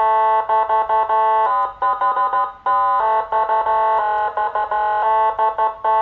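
Electronic horn tone from a 200-watt Whelen HHS-type siren amplifier and speaker. It sounds at one steady pitch, in blasts of about a second broken by runs of quick short toots.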